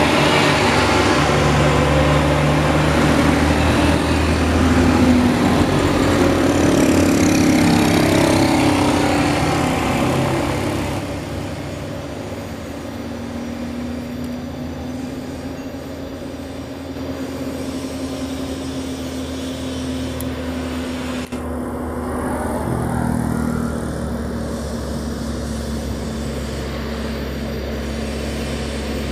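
Isuzu truck diesel engines pulling up a steep hill: a steady low engine drone under road noise, which changes abruptly about eleven seconds in and again a little past twenty seconds as a different truck takes over.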